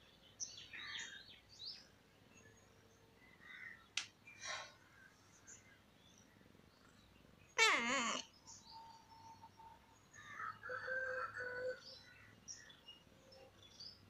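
A domestic cat meows once, a single half-second call about halfway through, with faint high chirps scattered around it.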